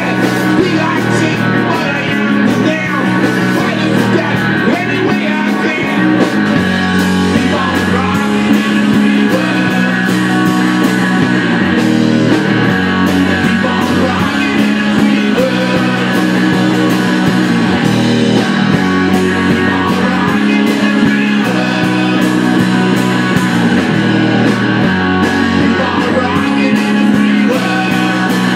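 Live rock band playing loud: electric guitars and a drum kit, with a man singing into a microphone.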